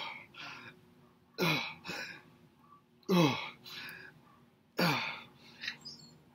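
A man grunting with effort through a set of dumbbell curls. Four grunts come about every second and a half to two seconds, each dropping in pitch, and each is followed by a shorter, softer breath.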